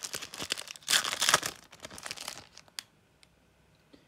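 Wrapper of a Topps Turbo Attax F1 trading-card booster pack crinkling and tearing as it is opened, loudest about a second in. The rustling stops about two and a half seconds in, leaving a few faint clicks.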